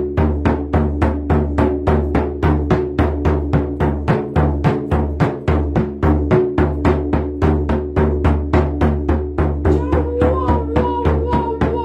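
A hand drum beaten in a steady, even rhythm of about four beats a second, each beat ringing into a low hum. Near the end a long, held, slightly wavering tone joins the drumming.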